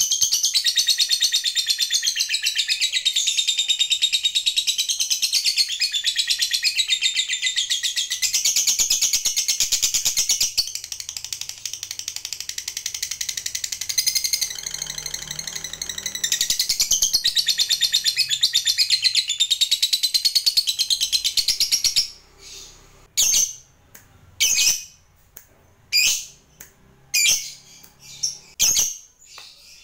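A lovebird giving its long, unbroken high-pitched chattering song, the 'ngekek panjang' that keepers prize. The chatter goes softer for a few seconds near the middle, then breaks off about two-thirds of the way through into short separate chirps, roughly one a second.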